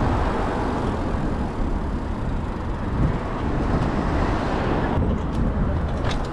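Steady rush of wind on a handlebar-mounted action camera's microphone while cycling, mixed with the traffic noise of cars on the road alongside. It cuts in suddenly.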